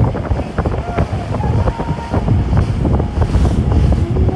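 Wind buffeting the microphone aboard a fast-running motorboat, mixed with the rush of its wake over choppy sea. The noise is loud and rough throughout.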